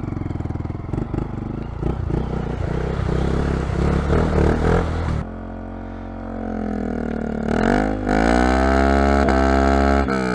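Honda Monkey 125's single-cylinder four-stroke engine pulling over rough ground, with irregular knocks over the engine note. About five seconds in it eases off, then revs up and holds high revs, dropping away near the end.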